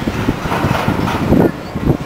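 Freight train of steel coal gondolas rolling past, its wheels clattering in a dense run of irregular knocks on the rails, with the strongest knocks a little past halfway.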